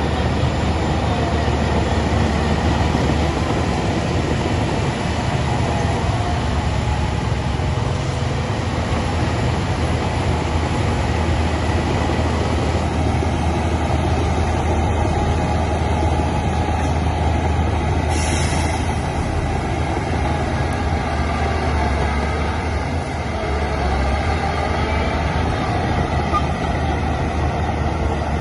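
Heavy diesel earthmoving machinery running steadily with a deep, continuous engine rumble. There is a brief hiss about two-thirds of the way through.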